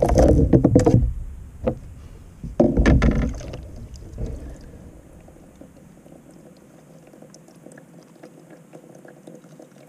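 Knocks and thumps on a plastic kayak as a live fish is unhooked with pliers and handled, loudest in the first second and again about three seconds in, then faint handling and water sounds.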